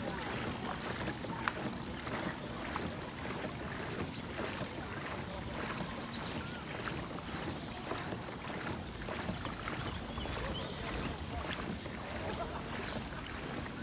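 Boat under way at slow speed: a steady motor hum with water splashing against the hull and some wind on the microphone.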